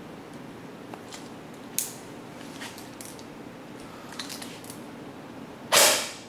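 SRC SR5 airsoft electric gun with a version 2 gearbox firing one loud, short shot near the end, after a few light clicks of handling. The gun is being fired with 0.20 g BBs for a muzzle-velocity test.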